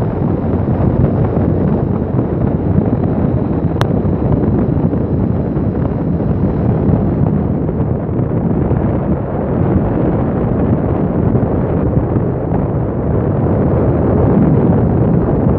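Motorcycle riding at highway speed: loud, steady wind buffeting on the microphone mixed with the rumble of the moving bike. A single brief click about four seconds in.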